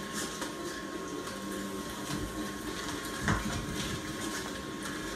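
A door slamming about three seconds in, with a softer thump a second earlier, over a steady hiss and a faint high whine, all heard through a TV speaker.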